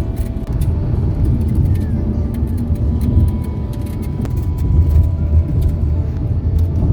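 Steady low rumble of a car on the move, road and engine noise.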